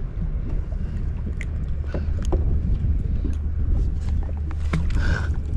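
Boat engine running with a steady low rumble, with a few light clicks and knocks over it.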